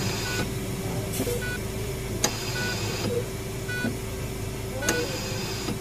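Sound-effects bed: a short high electronic beep repeating about once a second over a steady low rumble and hum, with a sharp click about every two and a half seconds.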